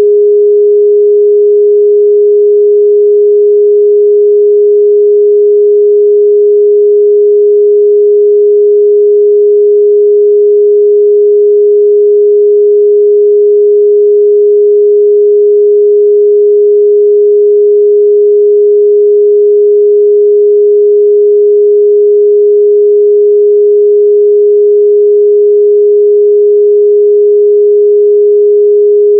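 A pure 414 Hz sine-wave test tone, one steady unwavering pitch held at a constant loud level with no overtones.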